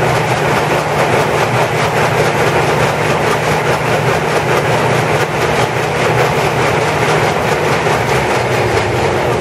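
Farm machinery running steadily and loudly: a low mechanical hum with a rapid, even clatter over it.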